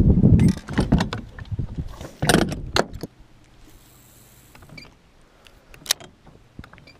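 Handling noise from a rod and baitcasting reel being cast from a boat: heavy rumbling and several sharp knocks for the first three seconds, then a quieter stretch with a faint steady hum, a short high whir and one sharp click near the end.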